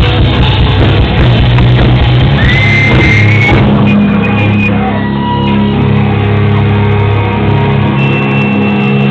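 Loud live rock band, with distorted electric guitars and drums. About three and a half seconds in, the cymbal hiss stops and held chords ring on, with a thin steady high tone above them.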